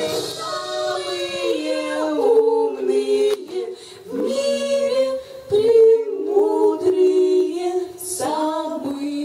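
Three women singing a cappella in close harmony into microphones, with long held notes that change pitch in steps and a couple of brief breaks between phrases.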